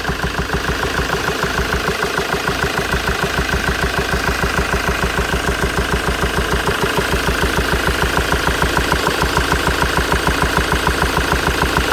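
Ford Transit 2.4 TDCi four-cylinder diesel idling, with several knocks a second in an even rhythm from a failing hydraulic lifter (lash adjuster) in the valvetrain.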